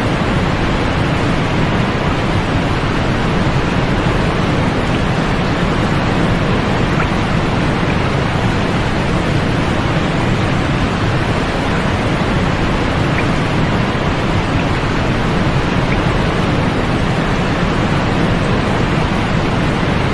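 Steady sleep-aid noise: a constant, even rush with no rhythm or change, heavier in the low end than in the treble.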